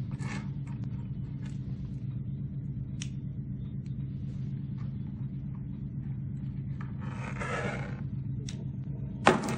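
Small clicks and a scraping rustle of wooden toy subway cars being handled, ending about nine seconds in with sharp clacks as a car's magnetic coupler snaps onto the hanging train, over a steady low hum.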